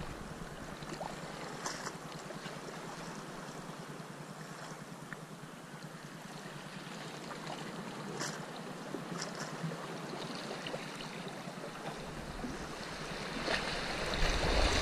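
Calm sea water lapping gently against a rock breakwater, with a few faint ticks. Wind buffets the microphone, growing louder near the end.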